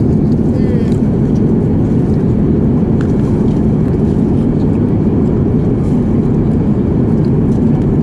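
Steady low cabin noise of an airliner in flight: engine and airflow noise at an even level.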